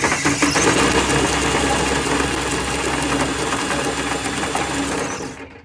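Power drill running steadily, spinning a Turbo Tank Cleaner cable inside a water heater tank to break up built-up sediment. It stops near the end.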